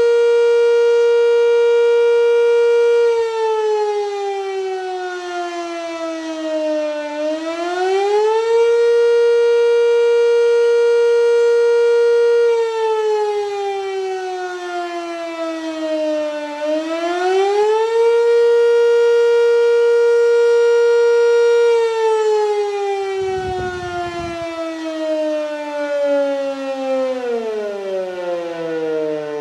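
Sentry 3V8 electromechanical warning siren sounding the attack signal. It holds a steady tone for a few seconds, sags lower in pitch, then winds back up, three times over. Near the end it winds down steadily to a much lower pitch.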